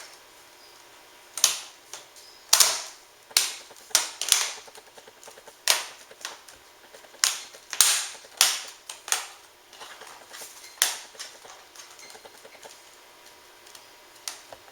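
Plastic screen bezel of a Dell Inspiron M5040 laptop snapping back onto the lid: a long, irregular string of sharp plastic clicks as the clips are pressed home around the edge, stopping about eleven seconds in.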